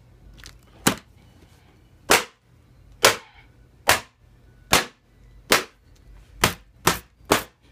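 An old Asus laptop being hit over and over with a heavy wooden object: about nine sharp, cracking blows on its plastic keyboard and casing, roughly one a second at first and coming faster near the end.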